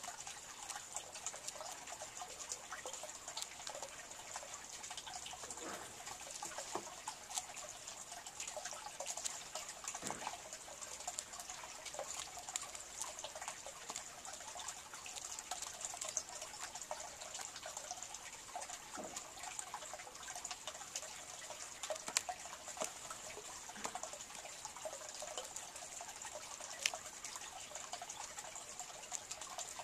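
Green jay pecking seed off a log, its bill striking the wood in many irregular sharp taps, over a steady high hiss.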